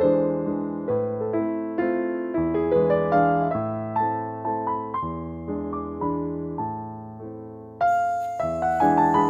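Background music: a piano, sounding like an electric piano, playing a slow melody of single struck notes that each fade away. Near the end a faint hiss with a steady high tone joins in.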